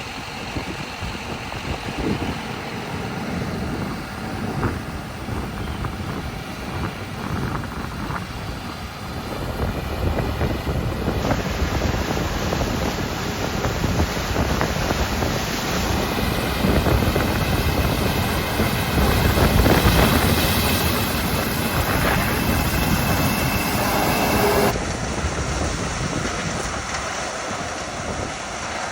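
Farm machinery running in the field, with wind buffeting the microphone. The sound changes abruptly a few times, about a third of the way in, about halfway and near the end.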